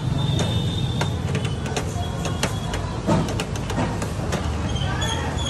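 Slotted metal spatula chopping an omelette in a metal frying pan, its edge clicking and scraping against the pan in quick, irregular strokes. A steady low rumble runs underneath.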